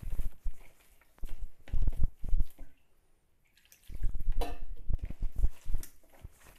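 A hand mixing a wet flour batter in a stainless steel bowl: irregular squelching slaps and knocks, breaking off for about a second midway. Soon after it resumes, a little water is poured in from a steel mug.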